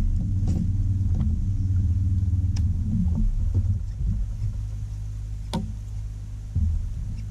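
Steady low hum of a bass boat's bow-mounted electric trolling motor, easing off about halfway through, with a few sharp clicks over it.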